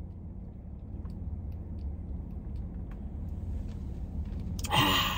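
Steady low rumble of a car's idling engine heard from inside the cabin, with faint small clicks. About four and a half seconds in comes a brief loud vocal sound.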